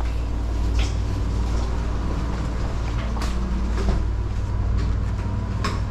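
A door being pushed open as someone walks through: three sharp clicks and knocks, about a second in, a little after three seconds and near the end, over a steady low rumble.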